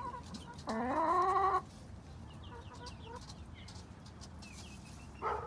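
A hen gives one loud call, a little under a second long and rising in pitch, about a second in, and a short call near the end. Faint, short, high peeps of young chicks are heard in between.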